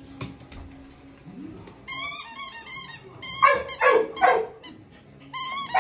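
A dog's squeaky rubber ball toy squeaks rapidly for about a second, then the dog barks three times in quick succession, and the toy squeaks again near the end.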